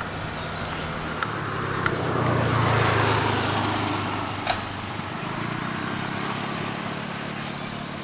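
A road vehicle passing close by, its noise swelling to a peak a few seconds in and then fading, over a steady background hiss. A few sharp clicks sound along the way.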